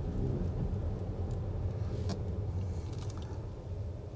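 Steady low rumble of a car driving, heard from inside the cabin, with a few faint clicks.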